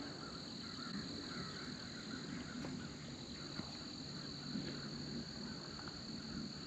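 Steady, high-pitched insect trill, like crickets, over quiet outdoor ambience, with a few faint ticks.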